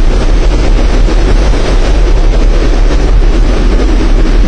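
Loud, steady roar of storm wind and driving rain, with deep rumbling wind buffeting on the microphone.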